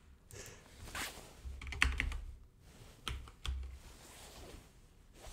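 Computer keyboard being typed on: a few scattered keystrokes and short bursts of quiet key clicks.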